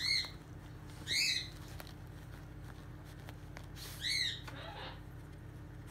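Plush squeaky toy squeaking three times as a raccoon bites and presses it: once at the start, again about a second later, and once about four seconds in. Each squeak is a short tone that rises and falls, and a brief rustle of fur on plush follows the last one.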